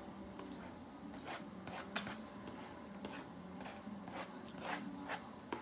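Wet mouth sounds of eating right at the plate: a string of short smacks and slurps, about eight in all, the loudest about two seconds in, over a faint steady hum.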